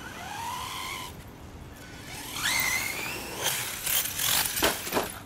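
An RC monster truck's electric motor whines, its pitch rising steeply as the truck speeds up the jump and then holding high. Several sharp thumps and clatters follow near the end as the truck lands.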